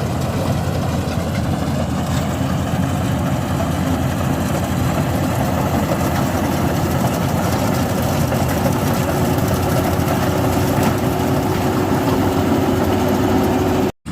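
Rice combine harvester running steadily while cutting paddy: an even engine drone, with a steady hum tone coming in about halfway through.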